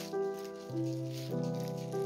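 Solo piano background music: a gentle melody with a new note about every half second.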